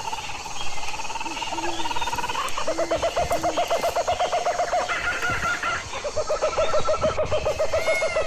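Goat bleating in long, quavering calls: two of about two and a half seconds each, from a few seconds in, with shorter calls before them.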